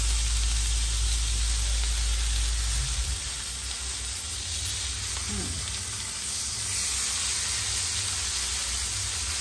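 Meat sizzling steadily on a barbecue grill over hot embers. A low rumble underlies the first three seconds.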